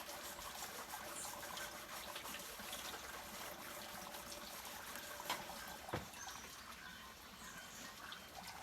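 Water trickling and splashing as dishes are rinsed, with light clinks and a couple of brief knocks about five and six seconds in.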